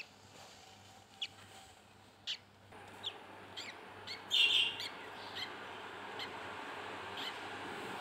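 Newly hatched budgerigar chicks giving short, high peeps, about one a second, with one longer, louder call a little past four seconds in. A steady hiss comes up about three seconds in and carries on beneath them.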